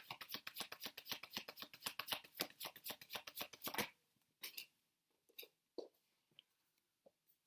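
Tarot cards being shuffled by hand: a fast, even run of light card slaps for about four seconds. After that come a few separate soft taps as the cards are handled.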